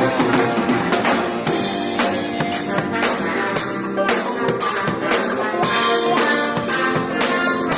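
A live gospel worship band playing an instrumental passage: drum kit keeping a steady beat with cymbal and snare hits, over guitar and sustained chords.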